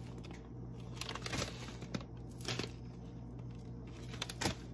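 Plastic grocery packaging crinkling now and then as it is handled (a rice pouch and a plastic shopping bag), over a low steady hum.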